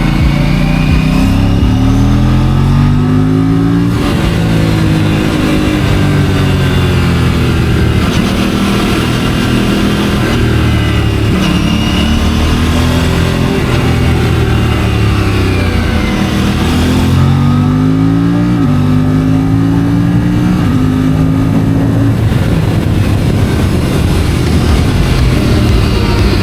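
A stock Aprilia RS 457's parallel-twin engine under way, heard from the rider's helmet. The revs climb and then drop sharply a few times as it accelerates and shifts gear, then run steadier near the end.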